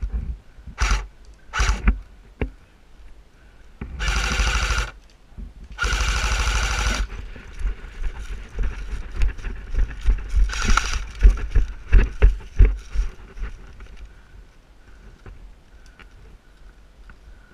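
Two bursts of fully automatic airsoft gunfire, each about a second long, a couple of seconds apart, amid scattered knocks and rustling.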